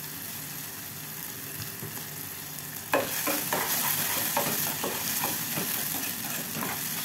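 Chopped onion, carrot, chilli and tomato sizzling in oil in a saucepan. About three seconds in, a spatula starts stirring them, giving many short scraping strokes over a louder sizzle.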